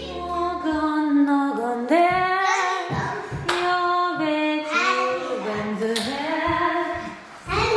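A woman and children singing a song together in a large unfurnished room, which gives the voices a ringing, echoing sound. The phrases are held and separated by short breaths.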